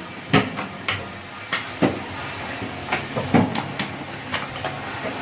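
About a dozen sharp, irregular clicks and knocks of tools and parts being handled during a car fuel hose replacement, over a faint low steady hum.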